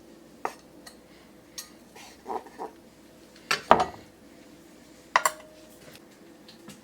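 Knife and fork clinking and scraping against a plate as a steak is sliced: several short separate clinks, the loudest a little past halfway.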